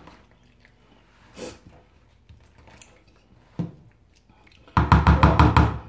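Spoon stirring potato salad in a plastic tub: faint scrapes and a click, then near the end about a second of loud, rapid clattering strokes, roughly eight a second.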